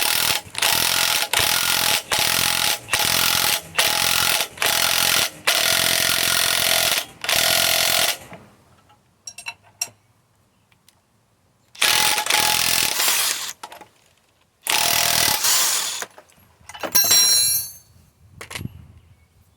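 Impact wrench hammering in repeated trigger bursts as it turns the screw of a bushing press, pushing the old upper control arm bushing out of a HMMWV's control arm. The bursts come in a quick string of short stabs, then two longer runs later.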